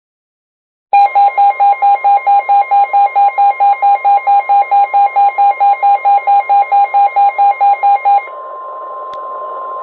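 Weather alert radio's alarm beeping rapidly, about four beeps a second, over the steady 1050 Hz warning alarm tone received from the NOAA Weather Radio broadcast. The tone signals that a warning is about to be read. The beeping stops about eight seconds in, leaving the 1050 Hz tone over radio hiss.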